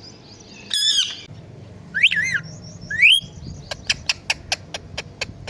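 Pet parrot calling: three sweeping, wavering squawks in the first three seconds, then a quick run of about eight short, sharp chirps.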